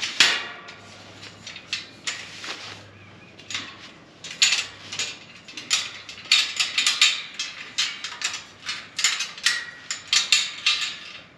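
Metal wire dog-pen panel and its gate clinking and rattling as they are handled, with a run of sharp clicks and clanks from the gate latches being worked open, which takes two hands.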